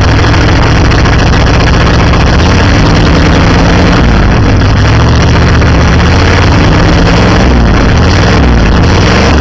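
Chevy Scottsdale pickup's 350 V8 idling loud and steady, its exhaust open because the pipe has rusted off at the Y-pipe, so it runs as a straight pipe.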